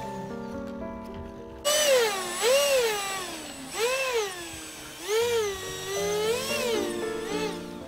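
A small RC model jet's electric motors whining, the pitch swooping up and back down about once a second as the throttle is blipped while taxiing, over background music with held chords.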